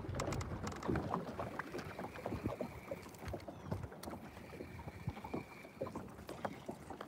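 Small water sounds lapping against a fiberglass bass boat's hull, with many light clicks and knocks. A faint high whine comes in twice, each time for a second or two.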